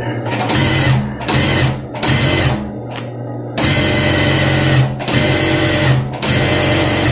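Industrial high-speed lockstitch sewing machine stitching fabric, its motor running in about six short runs that each cut out after a second or less. This is the fault of the machine stopping while the pedal is pressed, which the mechanic puts down to a weak power supply rather than the machine.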